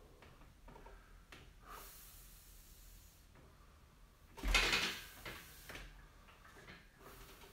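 A man breathing quietly while holding a stretch, with one short loud thud-like burst about four and a half seconds in.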